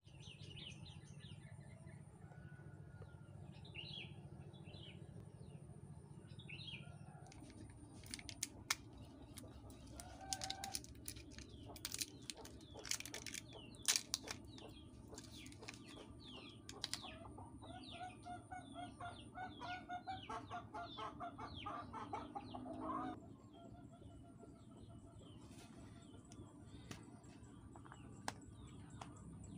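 Chickens clucking and small birds chirping, with a stretch in the middle of crackling and sharp clicks from a plastic foil sachet being handled and torn open.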